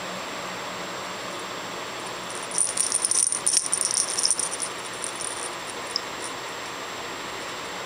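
Dangling flamingo cat toy rattling as a cat swats it: a burst of high jingling starts about two and a half seconds in and lasts about two seconds, followed by a few scattered jingles.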